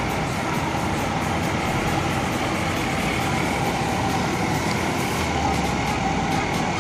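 Mercedes-Benz coach's diesel engine running steadily at close range.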